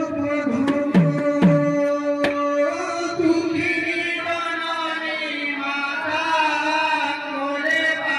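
Sambalpuri kirtan: a held note with three deep strokes on two-headed barrel drums (mridanga) about one to two seconds in, their low boom dropping in pitch. From about three seconds in, a male voice sings a devotional melody over the drone.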